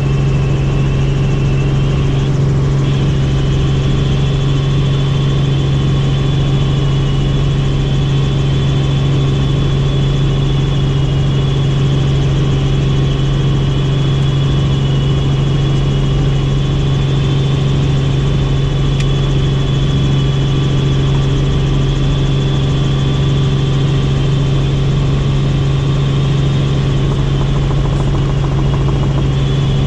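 Helicopter's turbine engine and rotors running steadily, a constant low hum under a high turbine whine that steps up slightly about two and a half seconds in.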